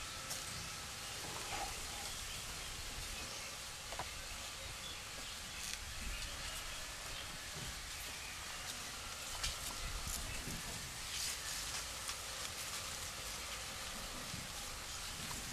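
Outdoor background noise: a steady high hiss over a low rumble, with a few faint clicks.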